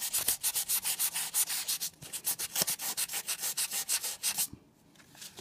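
800-grit wet/dry sandpaper rubbed by hand back and forth over an aluminum model passenger car's body, wet-sanding out a deep scratch. The strokes are quick and even, several a second, and stop about four and a half seconds in.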